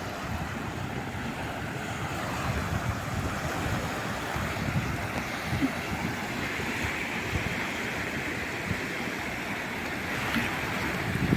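Calm sea waves washing steadily onto the shore, a little fuller in the second half.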